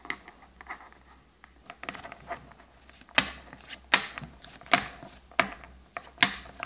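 Battle Spirits trading cards being flicked off a hand-held stack one by one: faint rustling at first, then from about three seconds in a sharp snap every three-quarters of a second as each card is slid away, five in all.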